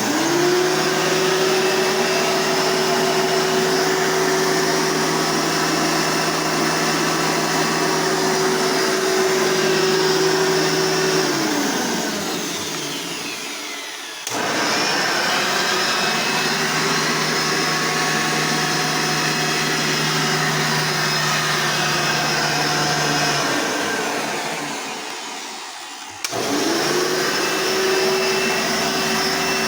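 Hoover vacuum cleaners run one after another: the first switches on with a rising whine, runs steadily, is switched off about eleven seconds in and spins down with a falling whine; a second, with a different set of tones, starts right after, runs and spins down the same way; a third starts near the end.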